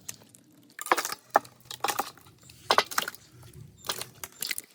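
An irregular series of sharp clicks and light knocks of hard objects being handled, starting about a second in.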